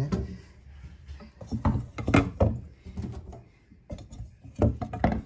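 A few irregular knocks and thumps, loudest about two seconds in and again near the end.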